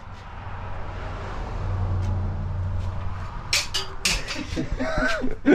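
A vehicle passing by: a low engine hum that swells and then fades over about three seconds, followed by a few brief clatters and snatches of voice near the end.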